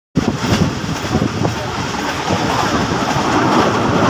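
Khyber Mail passenger train running at speed, heard from aboard: a steady rumble and rattle of the coaches with irregular clattering knocks from the wheels on the track.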